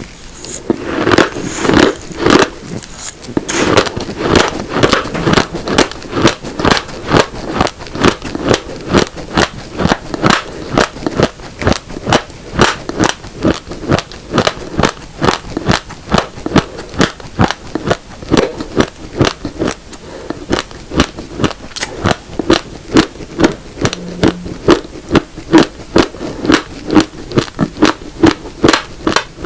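Close-miked crunching of raw, uncooked black and red rice grains being chewed, with a steady rhythm of about two to three crunches a second.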